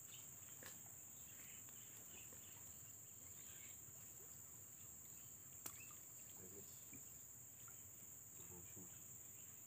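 Near silence with a faint, steady, high-pitched insect buzz, and one sharp click a little past halfway.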